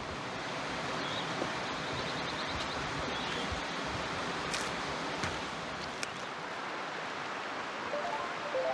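Steady rushing of a flowing mountain creek running over rocks.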